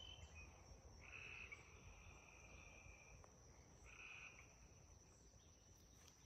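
Near silence with faint rural outdoor ambience: a steady high-pitched whine, and two faint trilling animal calls, a longer one about a second in and a short one near four seconds.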